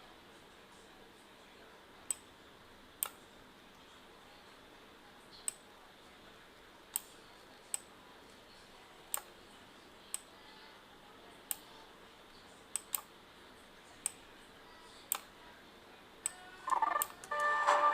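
Single computer mouse clicks, about one a second at irregular intervals, over a faint hiss. Near the end a burst of music playback starts.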